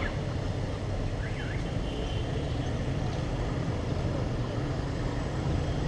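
Steady road traffic on wet streets: the low running of auto-rickshaw and car engines with the hiss of tyres on the wet road.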